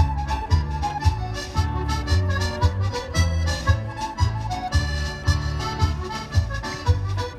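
Accordion-led Scottish country dance music played for the dancers, with a steady, even bass beat under a lively melody.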